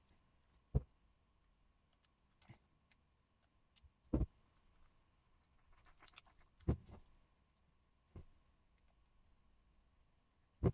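Small plastic clicks and knocks as a Nintendo Switch Joy-Con's shell and small tools are handled during reassembly: about five separate sharp taps a second or two apart, the loudest near the middle.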